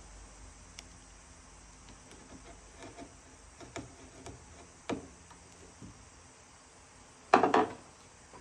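Light knocks and taps of hand tools against wood, with a sharper knock about five seconds in and a quick run of three or four loud knocks near the end.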